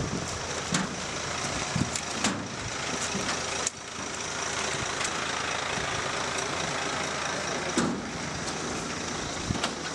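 Truck engine running amid a steady rush of noise, with scattered knocks and clicks. There is an abrupt break about a third of the way in.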